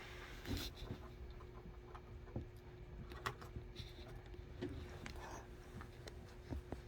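Faint, irregular clicks and light ticks, about half a dozen, over a low steady hum.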